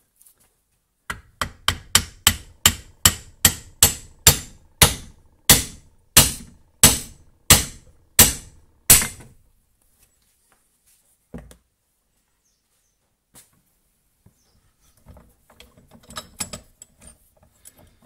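Hammer tapping a Toyota Crown twin-pot brake caliper half held in a vise by its piston, driving out the rusted, seized piston: about twenty sharp strikes, quick at first and then slowing. One more knock follows a couple of seconds later, then light handling clicks near the end as the piston comes free.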